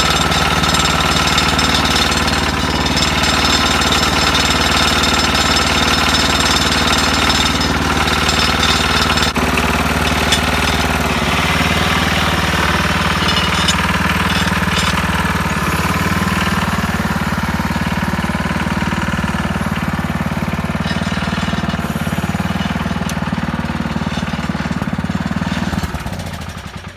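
Tecumseh HH120 single-cylinder engine of a 1968 Sears Suburban 12 garden tractor running steadily with a hard, even beat, then dying out near the end.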